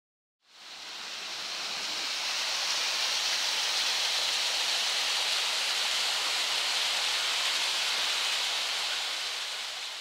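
Steady rush of water falling over a small waterfall. It fades in about half a second in and begins fading out near the end.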